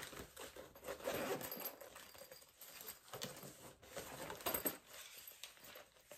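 Zipper of a small soft camera bag being pulled open in several short scratchy runs, mixed with the rustle of the bag's fabric being handled.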